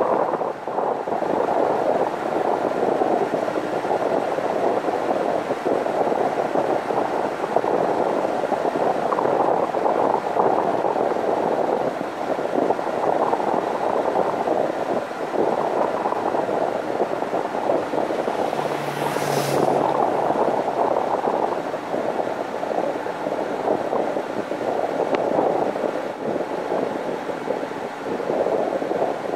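Wind buffeting the microphone of a camera mounted on the outside of a moving car, a loud, uneven rushing that mixes with road noise. About two-thirds of the way in a brief sharper hiss rises above it.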